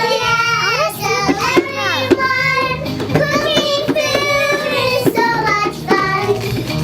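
Children singing over a backing track of music.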